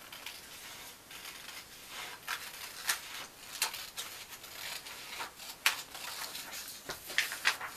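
Scissors cutting along the edge of a sheet of paper: a series of crisp snips at uneven intervals, with light paper rustle between them.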